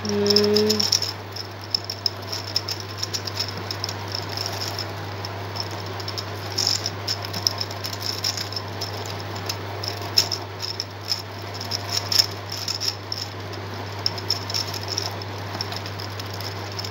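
Gear cube puzzle being turned by hand: irregular small plastic clicks and clatter from its geared pieces, over a steady low hum. A short hummed voice note at the very start.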